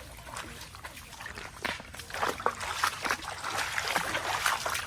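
Shallow stream water trickling and splashing, with scattered small knocks and clicks that get busier and louder from about two seconds in.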